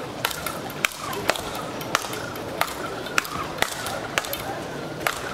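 Speedball rally: rackets striking the tethered ball in turn, about ten sharp cracks at roughly two a second.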